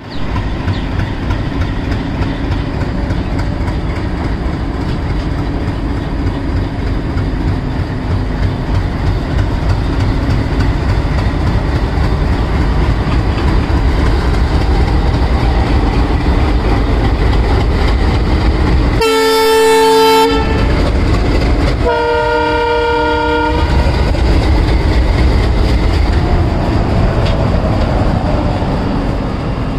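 WDM-3A diesel locomotive's ALCO 251 V16 engine working hard as it accelerates away, a heavy low rumble that slowly grows louder. About two-thirds of the way through come two blasts of a locomotive horn, each a little over a second long.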